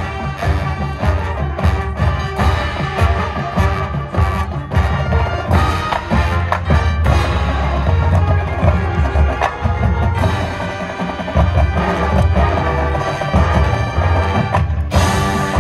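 High school marching band playing its field show, heard from the stands: full band with brass and percussion, loud and continuous, with frequent percussion strikes.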